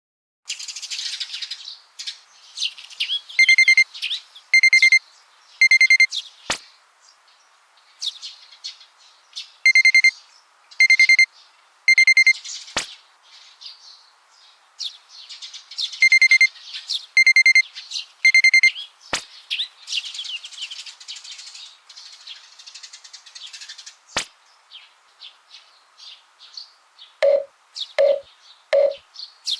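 Alarm clock beeping in three sets of three high, pulsing beeps, each set followed by a single sharp click, over continuous birds chirping. Near the end come three lower, shorter tones.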